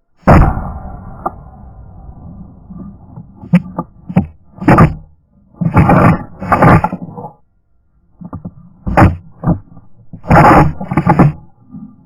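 A single rifle shot from a 7mm Winchester about a third of a second in, its report echoing and fading over roughly two seconds, followed by a string of short, loud, irregular bursts of sound.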